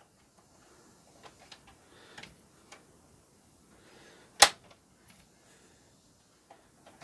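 Faint plastic clicks and ticks from a Sony CFD-510 boombox's cassette-deck mechanism being worked by hand, with one sharp click about four and a half seconds in as the repaired part catches in its white plastic latch.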